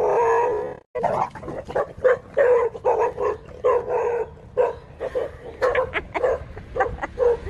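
A drawn-out dog whine that breaks off under a second in, then dogs barking over and over, about two barks a second, alarmed by a fake tiger dragged toward them.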